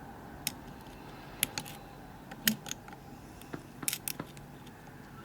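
Lock pick and tension tool working the pins inside a Kibblock euro lock cylinder: scattered sharp metallic clicks and ticks, irregular, some in quick clusters.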